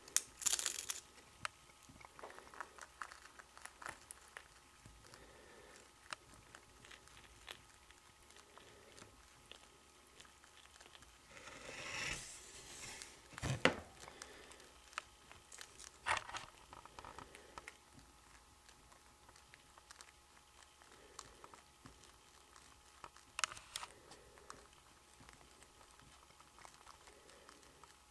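Chinchilla gnawing and crunching on a small treat, heard as faint scattered crunchy ticks. A few louder sharp clicks and rustles come through, the loudest about halfway through.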